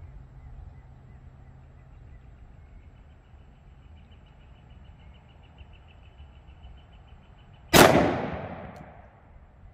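A single 10mm pistol shot from a Colt Delta Elite 1911 firing Sellier & Bellot XRG 130-grain copper hollow points, near the end, with its echo dying away over about a second and a half.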